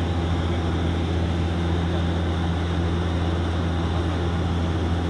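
Steady cabin drone of a De Havilland Canada Dash 8 Q400's Pratt & Whitney PW150A turboprops and six-bladed propellers in flight, heard inside the cabin beside the propeller: an even, unbroken hum with a strong low tone.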